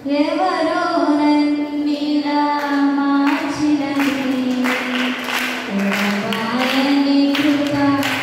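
Three young women singing a song together into handheld microphones, their voices amplified in a large hall. From about three seconds in, hand-clapping keeps time at roughly two claps a second.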